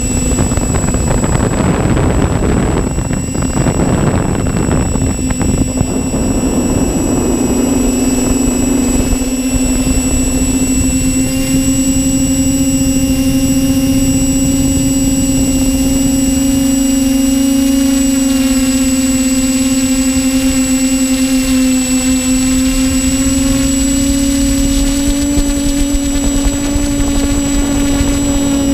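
Electric motors and propellers of a TBS Explorer Pro quadcopter whining steadily in flight as heard from its onboard GoPro, with a constant high-pitched whine above the motor hum. The first few seconds are rougher and noisier.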